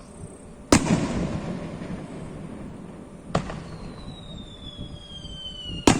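Aerial fireworks bursting: three sharp bangs, about a second in, just past three seconds and near the end, the first the loudest, each followed by a rumbling echo. A whistle slides down in pitch over the last two seconds.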